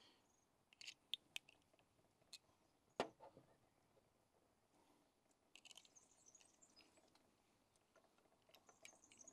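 Quiet handling of small metal tools: faint clicks and light ticking as a Helicoil insert tool and a threaded metal part are picked up and fitted together, with one sharper click about three seconds in.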